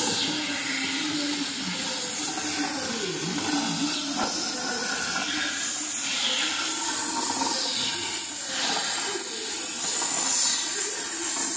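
Oxy-fuel gas cutting torch hissing steadily as it cuts through a steel drum.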